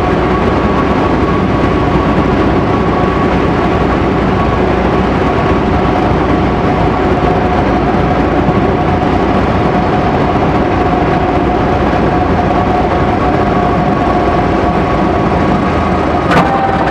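Cabin noise of a Cessna 150 landing: its four-cylinder Continental O-200 engine running at low power with propeller and airflow noise, plus a steady whine, continuing unbroken as the plane slows from final approach onto the runway.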